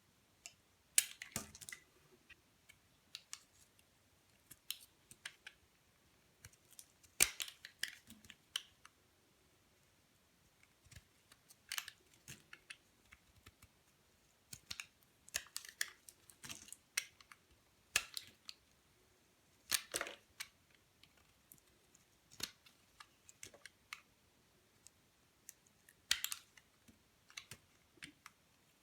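A knife cutting dry bar soap: short, sharp crisp cracks and crunches that come in irregular clusters every few seconds.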